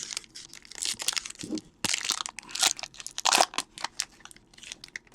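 Foil wrapper of a pack of baseball cards crinkling as it is handled and opened, in a run of irregular rustles, loudest around the middle.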